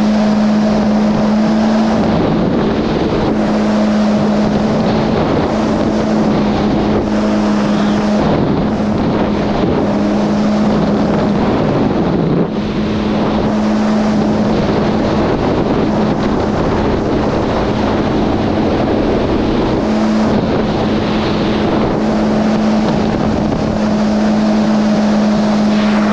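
Yamaha GP1800R SVHO personal watercraft under way at a steady cruise, its supercharged four-cylinder engine holding an even pitch that wavers briefly a few times. Wind rushes over the microphone throughout.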